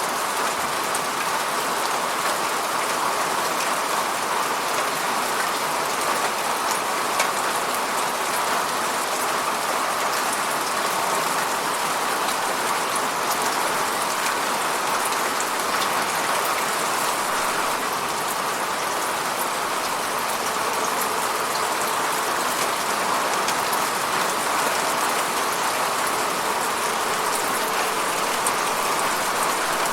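Steady rain falling on and around a window, a dense even hiss with many fine drop ticks and a few sharper taps.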